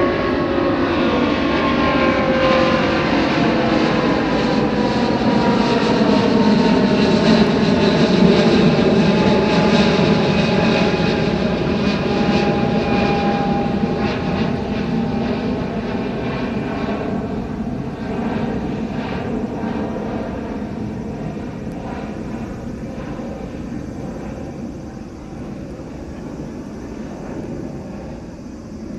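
Boeing 777-200's twin Pratt & Whitney turbofans at takeoff power as the jet climbs out past: a loud rumble with a cluster of engine tones sliding down in pitch, loudest about eight seconds in, then fading as it moves away.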